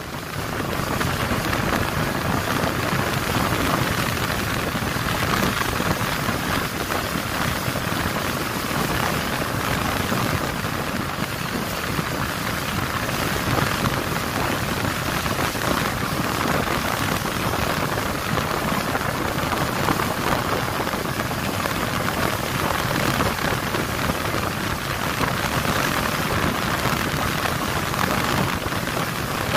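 Steady rushing noise aboard a small boat under way: wind and water rushing past the hull.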